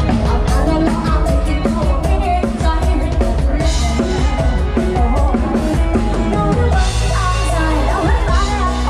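Loud amplified lam sing band music, Isan folk-pop, carried by a driving drum-kit beat with a heavy bass.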